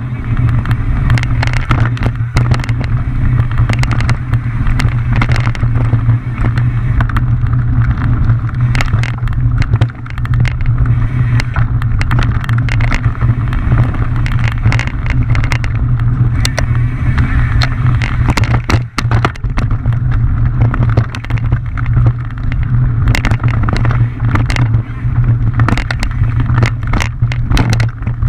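Mountain bike descending a rough trail, heard from a mounted camera: a loud, steady low rumble with frequent sharp clicks, knocks and rattles as the bike runs over rough ground.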